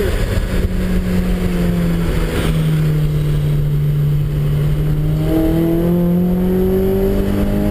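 Car engine heard from inside the cabin on a race track, its note dropping to a lower steady pitch about a third of the way in, then rising steadily as the car accelerates.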